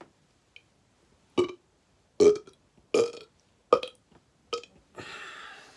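A person burping deliberately, five short burps in a row about a second apart, the middle ones the loudest.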